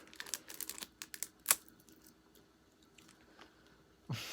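Crinkling and clicking of a plastic snack packet being handled and opened, with a sharp snap about one and a half seconds in. A short breathy sound follows near the end.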